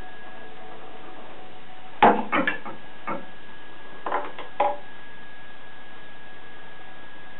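A ping pong ball knocking and bouncing on the hard bath surface and around the metal plughole as a cat goes after it: a cluster of sharp clicks about two seconds in and another about four seconds in. A faint steady high whine runs underneath.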